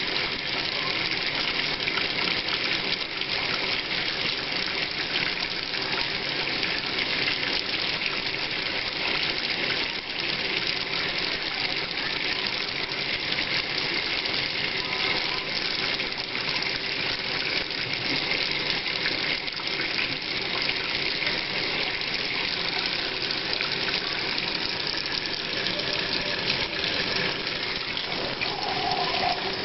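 Kitchen tap running a thin, steady stream into the sink drain, while salt water is poured from a plastic measuring cup and splashes into the sink basin: a continuous hiss of running water.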